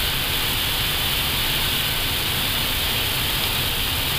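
Steady rushing noise of air and engines heard inside an Airbus A320 flight deck on short final approach: an even hiss over a low rumble, unchanging throughout.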